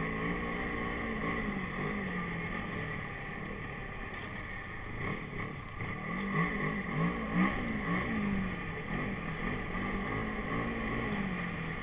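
Yamaha Phazer snowmobile engine running under way along a trail, its pitch rising and falling again and again as the throttle is opened and eased, most often in the second half.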